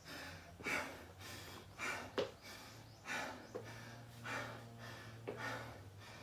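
A man breathing hard, with heavy rasping breaths about once a second as he recovers from a set of 30 burpees.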